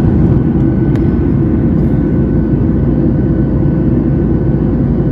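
Cabin noise of an Akasa Air Boeing 737 MAX climbing after takeoff, heard from a window seat: a steady low rumble of jet engines and airflow, with a faint steady tone above it.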